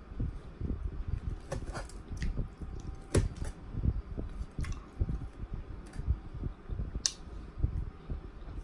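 Close-miked chewing of fried catfish and shell-on fried shrimp: soft, wet chewing throughout. A handful of sharp clicks, about four or five spread through, come from a metal fork on the plate.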